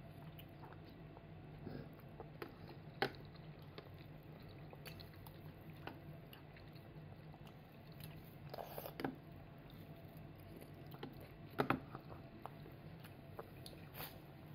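A toddler eating: faint chewing with a few sharp clicks of a metal spoon against ceramic dishes, the loudest about 3 seconds in and near 12 seconds.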